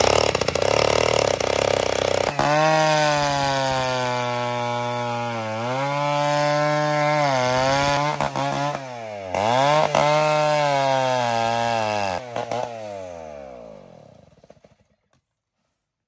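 Two-stroke chainsaw cutting a notch into the base of a tree trunk. The engine pitch dips and rises several times as the chain bites into the wood, then winds down and stops near the end.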